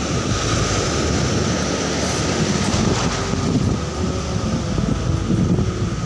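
Sea surf breaking and washing through shallow water, with wind rumbling on the microphone. A faint steady whine runs underneath.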